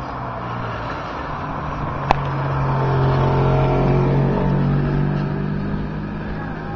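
An engine-like drone that swells to its loudest about three to five seconds in and then fades, with a single sharp click about two seconds in.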